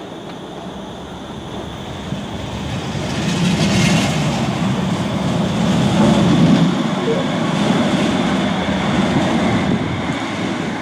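Bombardier M5000 light-rail tram pulling away along the track. The noise of its motors and its wheels on the rails grows louder over the first few seconds as the cars pass close by, then holds fairly steady.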